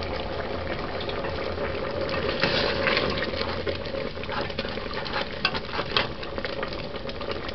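Thick stew peas bubbling in an aluminium pot over a steady hum, with a metal spoon stirring and knocking against the pot a few times in the second half. The stew has thickened to the point of starting to stick on the bottom, the sign that it is nearly ready.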